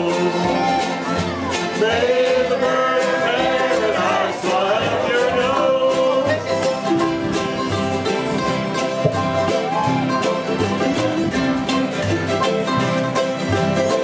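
Ukuleles, banjo and acoustic guitars playing a country tune together, with several voices singing along for the first several seconds, then the strings carrying on alone.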